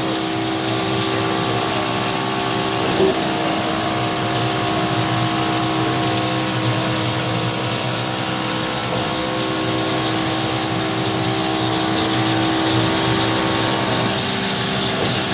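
Homemade CNC mill's spindle running steadily while an end mill cuts a clamped metal plate under flood coolant, with coolant spraying and splashing. An even machine hum with several fixed tones holds through.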